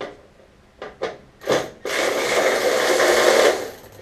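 Hand ratchet working a fastener on a VW air-cooled engine: a few separate clicks, then a steady run of fast ratcheting for nearly two seconds, and one more short burst at the end.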